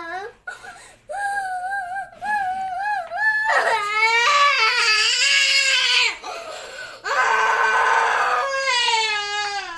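A young girl crying in grief: a run of long, high, wavering wails and sobs, broken by short catches of breath.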